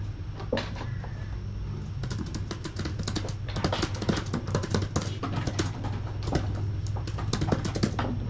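Computer keyboard being typed on: rapid, irregular clicking that starts about two seconds in, over a steady low hum.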